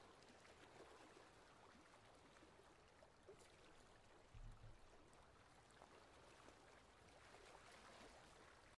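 Faint water swishes and trickles from a wooden hand paddle stroking through calm water beside a small wooden boat, with a single low thump about four and a half seconds in.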